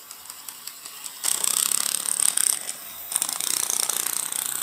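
HO-scale Mantua 0-6-0 steam switcher model running on sectional track: a whirring gear drive with fast clicking from the wheels and mechanism, louder from about a second in.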